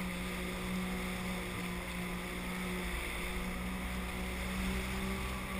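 Sea-Doo personal watercraft engine running steadily at low speed, a constant low drone, with wind and choppy water around it.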